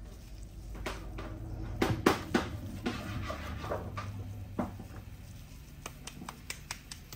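Scattered light knocks and clicks of kitchen handling, the loudest cluster about two seconds in, over a low steady hum.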